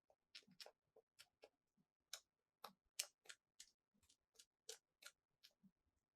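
Small plastic toy pieces clicking and tapping against each other in a quick, uneven run of light, sharp clicks, about three or four a second.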